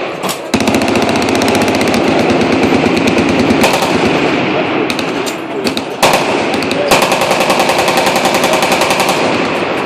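Several machine guns firing fully automatic at once, in long, overlapping, continuous bursts. New bursts cut in about two-thirds of the way through.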